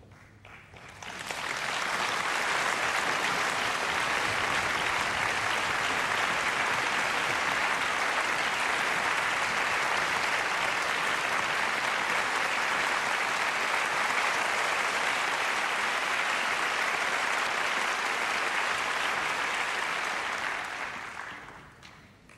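Audience applauding steadily. The applause swells in about a second in and dies away near the end.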